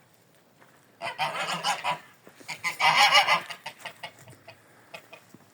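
Domestic geese honking, sharp repeated calls in two bouts: one about a second in and a louder one around three seconds in.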